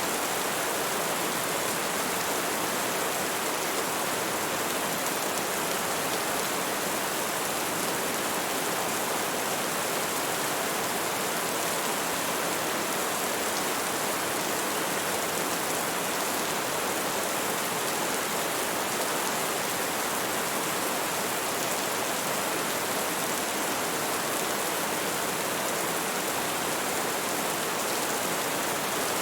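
Steady heavy rain: an even, unbroken hiss of falling rain.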